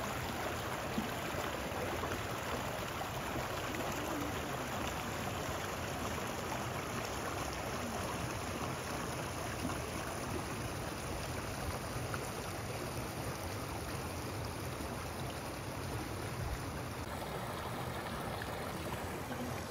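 Steady rushing of flowing water from a mountain stream, an even hiss without breaks.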